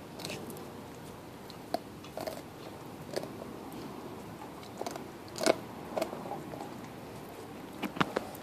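Blue Bay Shepherd puppy chewing a raw beef bone: irregular crunches and cracks of teeth on bone, a second or so apart, the loudest about five and a half seconds in and again near the end.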